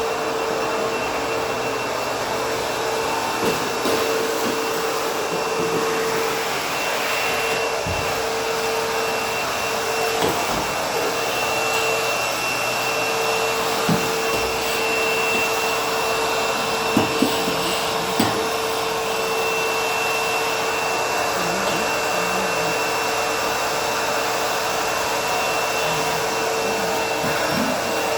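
ProTeam Super CoachVac backpack vacuum running steadily with a constant motor whine, with a few light knocks along the way.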